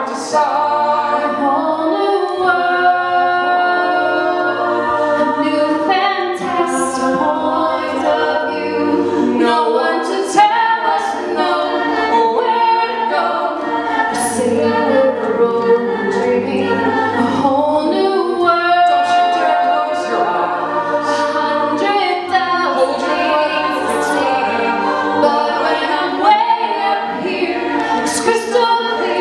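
Mixed-voice a cappella group singing a Disney medley: a woman and a man sing the lead into handheld mics over sung backing harmonies and a low sung bass line.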